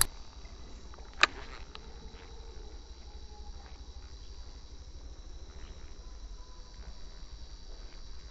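Steady chirring of crickets over a low outdoor rumble, with one sharp click a little over a second in and a fainter tick just after it.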